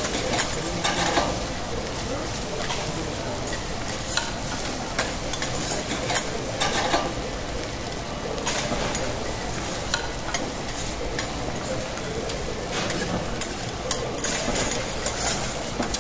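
Food sizzling on a steel teppanyaki griddle, with metal spatulas scraping and clacking against the plate every so often as fried rice is tossed and chopped.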